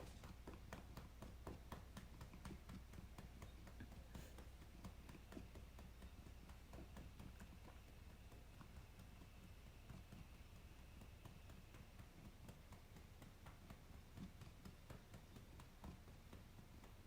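Faint, rhythmic soft pats of a hand tapping a cat's lower back through its fur, about three a second at first, then more spaced out.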